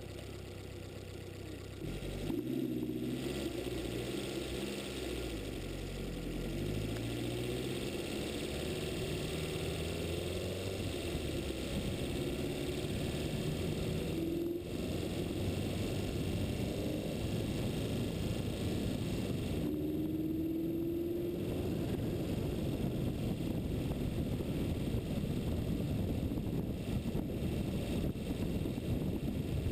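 Engine of a vehicle following a cyclist downhill, its pitch shifting up and down as it slows and speeds up through the bends, under a rush of wind on the microphone that grows as the run goes on.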